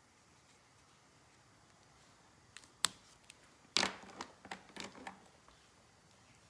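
Plastic clicks and light clatter of coloring markers being picked up and uncapped: a few sharp single clicks, then about a second later a quick flurry of clicks and knocks.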